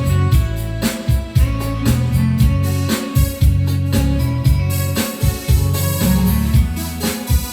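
Instrumental backing music with a steady drum beat under a bass line, with keyboard and guitar parts on top; no singing.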